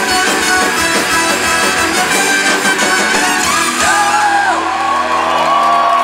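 Live rock band (guitars, bass and drums) playing the last bars of a song: full-band playing with a steady drum beat until about four seconds in, when the drums stop and held, ringing guitar chords carry on. Audience shouts and whoops come over the ringing chords.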